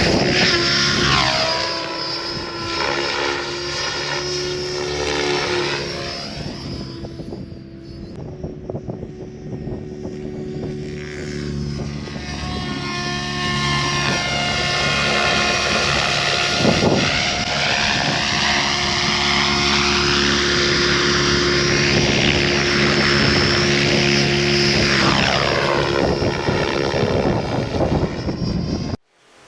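Goosky RS7 electric RC helicopter in flight: a steady whine from rotor and motor whose pitch sweeps up and down several times as it manoeuvres, dropping quieter for a few seconds in the middle, then cutting off suddenly near the end.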